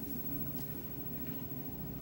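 A steady low hum, with faint soft rustles as a wet sheet mask is unfolded by hand.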